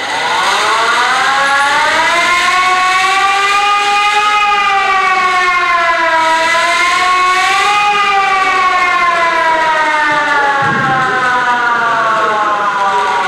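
Hand-cranked mechanical siren, loud, its pitch rising as the rotor spins up, dipping and climbing again around the middle, then slowly sinking as the rotor winds down.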